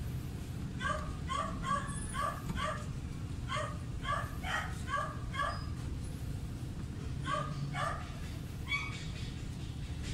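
A dog barking in quick runs of short barks, about two or three a second, pausing for a couple of seconds past the middle before a few more, over a steady low hum.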